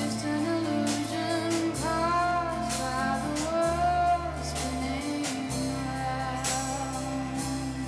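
Film soundtrack music: a singing voice over held bass notes, with light percussion keeping a slow beat.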